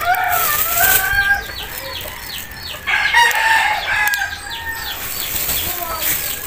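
Backyard roosters crowing twice: one long crow at the start, another about three seconds in. Rapid high chirps fill the gaps between.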